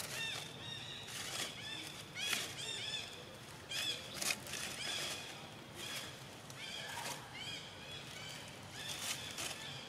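Long-tailed macaques calling: many short, high calls that rise and fall, several a second and often overlapping, with a few sharp clicks among them.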